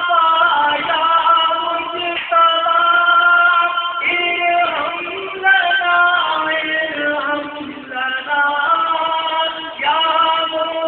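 A single voice singing unaccompanied in a devotional, chant-like style, holding long notes that bend and glide from one pitch to the next, with short breaks between phrases.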